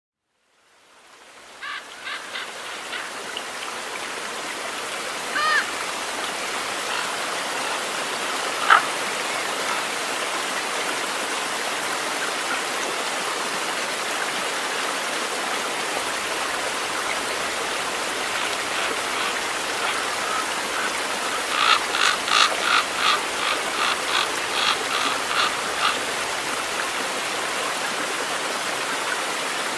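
A stream running steadily over rocks, fading in at the start. A bird calls a few times, then gives a quick run of repeated calls, about three or four a second, for several seconds near the end.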